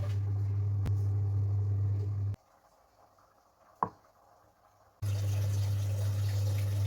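Air fryer running with a steady low hum and fan hiss, cut off abruptly partway through and resumed a few seconds later; a single short click sounds in the quiet gap.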